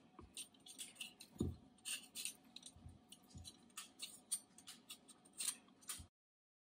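Vegetable peeler scraping along the hard skin of a squash wedge in short, quick strokes, about three a second, with one soft knock about a second and a half in. The sound cuts off suddenly about six seconds in.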